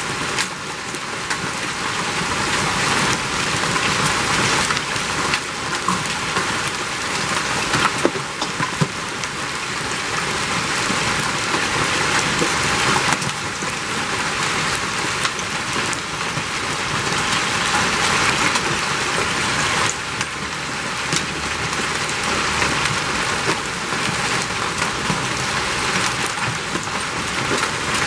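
Hailstones pelting down in a dense, steady clatter, with many sharp individual impacts over a constant hiss of falling ice and rain.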